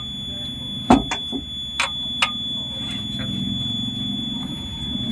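A few sharp metallic clicks and knocks from a spanner working the fuel-pipe fitting on a diesel high-pressure pump, over a steady high-pitched tone and a low hum.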